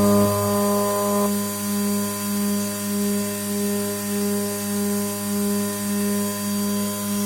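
CNC machining center running: a steady, pitched motor hum that swells and fades regularly, about one and a half times a second.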